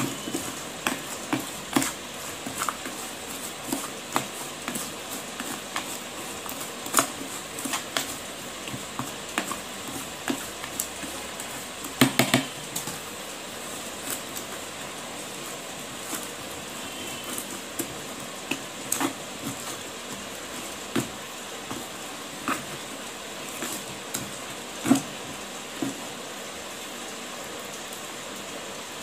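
Wet crushed slate-pencil clay being stirred and squeezed by hand in water in a plastic tray: soft squelching with scattered crunchy clicks and taps, and a quick run of sharp taps about twelve seconds in, over a steady hiss.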